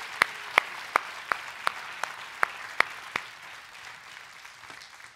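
Audience applauding, with one person's loud, evenly spaced hand claps close to the microphone, a little under three a second. The close claps stop a little after three seconds in and the applause fades away.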